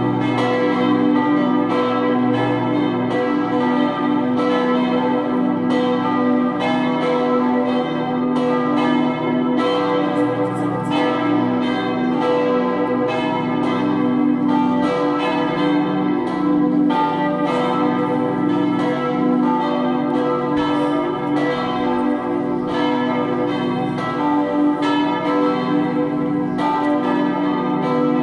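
Four swinging church bells, tuned Si2, Ré3, Mi3 and Sol3, ringing together in a full peal. Their strikes overlap in a quick, uneven rhythm over a sustained hum of ringing tones.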